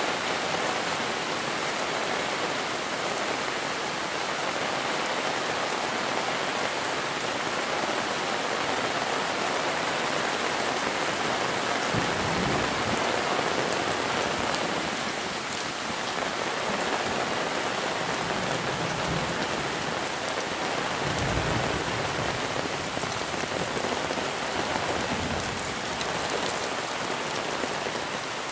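Monsoon rain falling steadily in a dense, even patter. Two brief low rumbles come about twelve and twenty-one seconds in.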